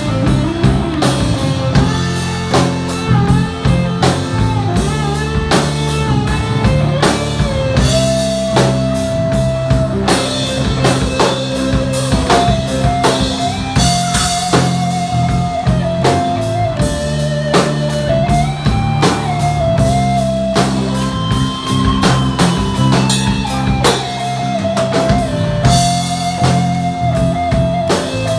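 Rock music: a guitar playing a melody over a steady drum-kit beat.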